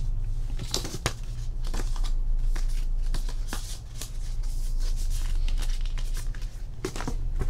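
Cardboard and paper being handled: a stiff folded card and the contents of a cardboard box rustle, tap and scrape in quick irregular clicks. A steady low hum runs underneath.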